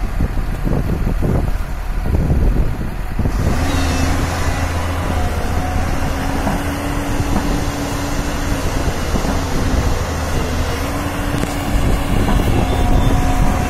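Diesel engine of a JCB tracked excavator running steadily under load as the boom and bucket swing. Wind buffets the microphone for the first few seconds.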